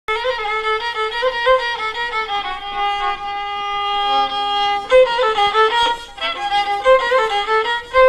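Violin playing the opening melody of an old Amazigh folk song: quick ornamented phrases, with one long held note from about three to five seconds in.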